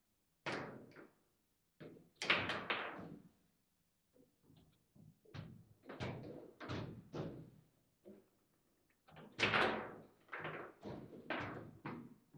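Table football play: rapid sharp clacks and knocks as the ball is struck by the figures and the rods are worked. They come in quick clusters with short pauses between them, the loudest about two seconds in and again after nine seconds.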